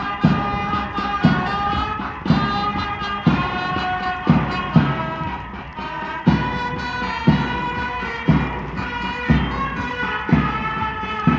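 Band march music with a steady drum beat about once a second under a melody.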